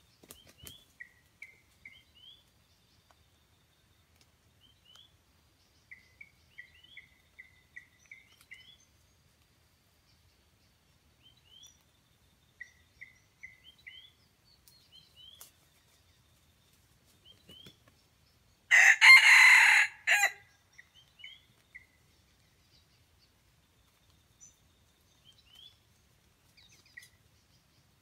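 A wild junglefowl rooster crows once, loud and harsh, about two-thirds of the way through, the crow lasting about a second and a half. Faint short chirping notes come and go throughout.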